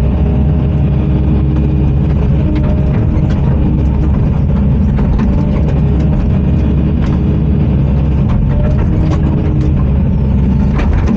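Heavy diesel earthmoving machine running steadily under load, with scattered knocks and clanks as it works through frozen ground.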